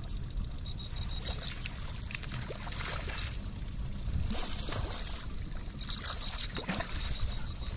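Water splashing and sloshing as a hooked sea trout thrashes at the surface beside the boat and a landing net is pushed into the water. There are several separate splashes over a low, steady rumble.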